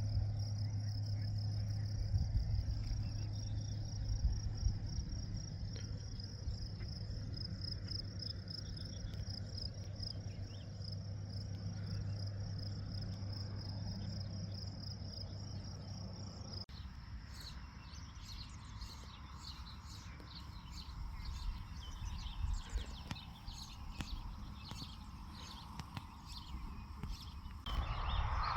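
Insects trilling in a steady high drone over a low steady hum. About halfway through the sound changes abruptly to a scatter of short high chirps over quieter background noise.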